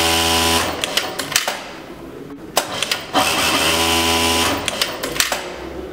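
Juki DDL-8700-7 single-needle lockstitch industrial sewing machine stitching fabric in two runs. The first ends about half a second in; the second starts around two and a half seconds in and lasts a few seconds. The running machine gives a steady hum, and a few sharp clicks fall in the pause between the runs.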